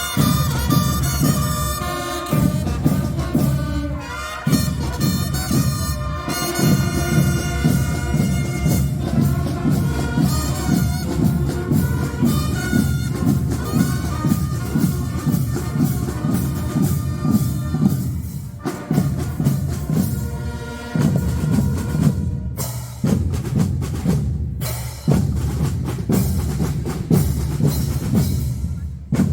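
Marching fanfare band playing: brass carries the tune over steady drums and percussion. About two-thirds of the way through, the brass mostly drops out and the drum section plays on alone, with short breaks between phrases.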